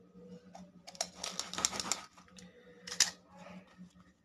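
Metal kettle lid, used as a dough cutter, pressed and worked into rolled dough on a wooden board: about a second of scraping and clicking, then one sharp click about three seconds in.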